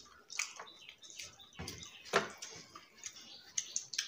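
Close-up wet eating sounds of rice and fish curry eaten by hand: a string of short squelches and mouth smacks, the loudest about two seconds in.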